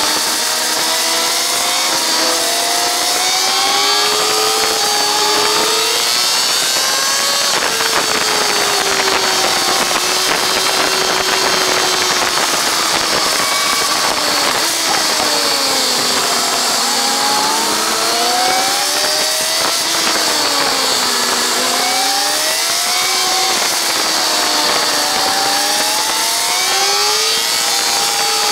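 Kawasaki ZZR1400's inline-four engine under hard acceleration, its pitch climbing in steps through upshifts in the first several seconds, then holding a fairly steady note, then falling and rising again and again with the throttle through a series of corners. Wind rush over the bike-mounted microphone runs underneath.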